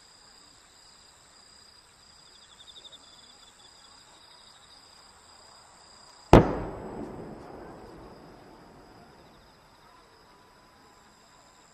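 A single loud firework bang about six seconds in, followed by an echoing rumble that dies away over a few seconds. Before it, only a faint background with a steady high-pitched chirring.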